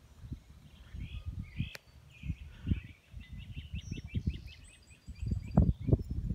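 A bird chirps in a quick run of short notes about four seconds in, over irregular low thumps and rumble that grow louder near the end.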